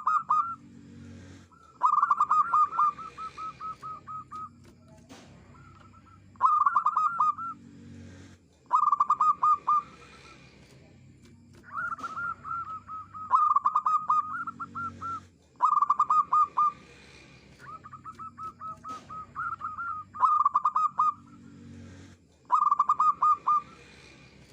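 Zebra dove cooing: a phrase of quick, clipped notes repeated over and over, about every two to three seconds, some phrases trailing into a longer run of shorter notes.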